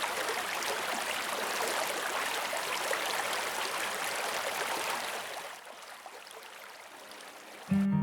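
Steady rush of water, which fades down about five and a half seconds in. Acoustic guitar music starts just before the end.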